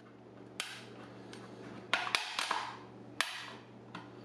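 Plastic snap clips of a Seagate Expansion desktop drive's case clicking loose as the top is pried away from the base with a table knife. Several sharp clicks over light plastic scraping and handling, the loudest about two seconds in and again just after three seconds.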